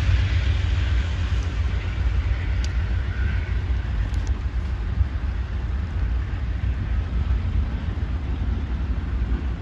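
Amtrak Downeaster passenger train pulling away in the distance: a steady low rumble, with a hiss of train noise that fades over the first few seconds, and wind on the microphone.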